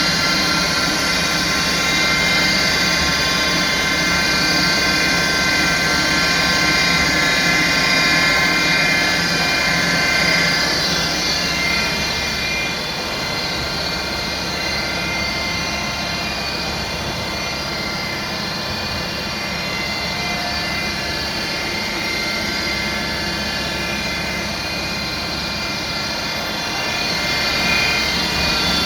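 CNC-retrofitted Lagun milling machine running: a steady mechanical whine made of many high tones over a low hum. It gets a little quieter about twelve seconds in and picks up again near the end.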